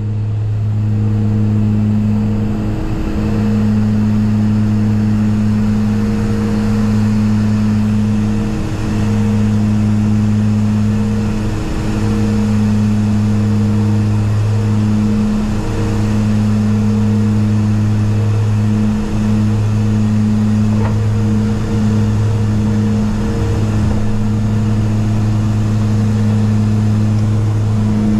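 Cockpit drone of a BAe Jetstream 32's twin Garrett TPE331 turboprops and propellers in flight on approach to land: a loud, steady, deep hum with a slow wavering in its pitch tones.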